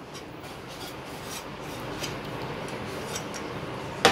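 A bare hand scraping fried onions out of a nonstick pan and working them into boiled potatoes and sweet corn in a glass bowl: a steady, soft rubbing, with one sharp knock right at the end.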